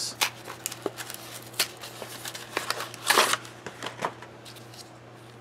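MRE packaging being handled: plastic and foil ration pouches rustling and crinkling, with light taps and clicks throughout and a louder rustle about three seconds in.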